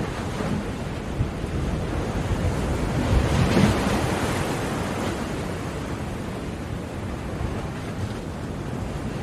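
Ocean waves breaking on a shore: a steady wash of surf, with one wave swelling to a crash about three seconds in and then washing back.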